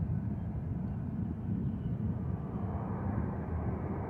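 Steady, low rumble of a distant jet airliner's engines.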